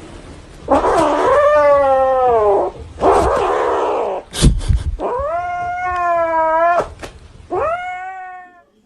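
A cat giving long, drawn-out meows: three calls of about two seconds each that waver in pitch, with a breathier, noisier call between the first two and a sharp click about halfway through.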